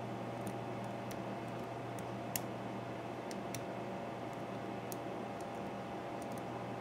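Faint, irregular metallic clicks of a hook pick working the pin tumblers of an American Series 5200 padlock under light tension from a paperclip wrench, about a dozen in all, one sharper click about two and a half seconds in, over a steady hiss and hum.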